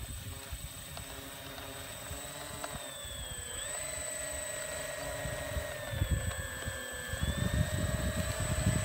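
Twin electric motors and propellers of a Flightline P-38 RC warbird whining as it taxis on grass. The pitch dips and comes back up twice as the throttle changes, about a third of the way in and again past the middle.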